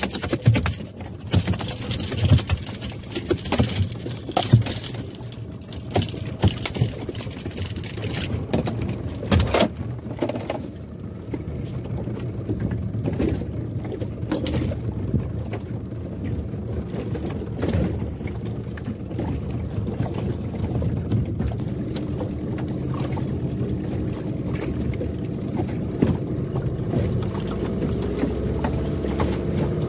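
Yamaha 15 hp outboard motor running steadily, pushing a small fishing boat along while trolling. Sharp knocks and rattles sound repeatedly over the engine during the first ten seconds or so, and the engine note grows a little louder and more even toward the end.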